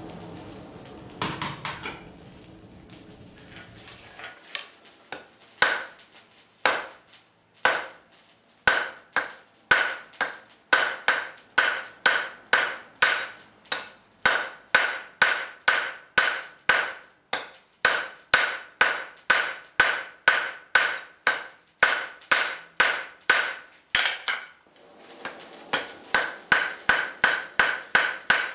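Hand hammer striking hot 3/8-inch square steel bar on an anvil to forge a tapered point. A few scattered blows come first, then a steady run of about two to three blows a second with a high ring carrying through them. The blows stop briefly near the end, then start again.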